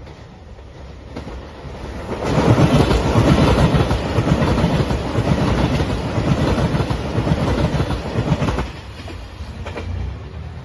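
JR Shikoku 2700 series diesel limited express train passing close at speed, its wheels clattering over the rail joints. The sound swells about two seconds in, stays loud, then drops suddenly near nine seconds to a fainter rumble.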